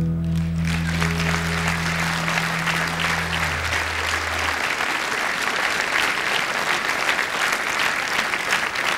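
Audience applauding. It starts just after a final low chord on electric bass and acoustic guitar, which rings on under the clapping and dies away about four seconds in.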